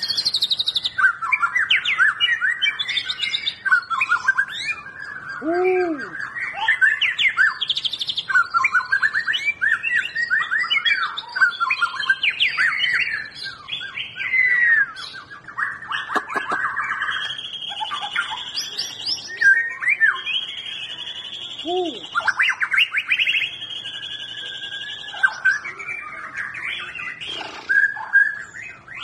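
White-rumped shama singing without pause: a rich run of quickly changing whistled phrases, broken in the middle by a few long, even held notes.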